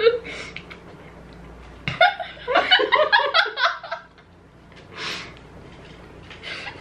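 Young people laughing: a fit of giggling laughter about two seconds in that lasts around two seconds, then a short breathy puff of a laugh.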